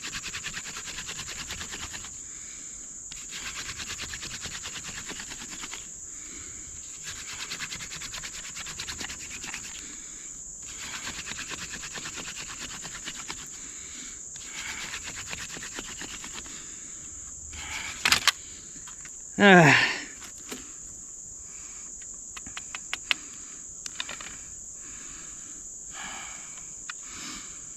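Hand drill at work: a dog fennel spindle spun between the palms grinding into a cedar fireboard, in rasping runs of two or three seconds with short breaks between them, over a steady high buzz of insects. About two thirds of the way through, a sharp click and then a loud, quickly falling sweep.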